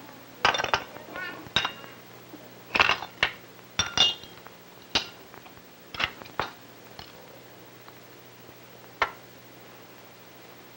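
Dishes and cutlery clinking and knocking at a meal table: a dozen or so short sharp clinks over the first seven seconds and one more near the end, over a steady low hum.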